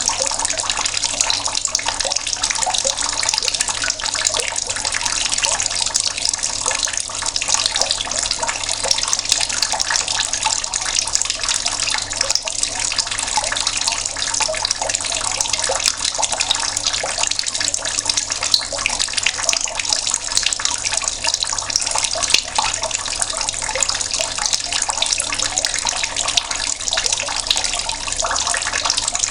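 Tap water running in a steady stream and splashing as it lands, a constant busy patter.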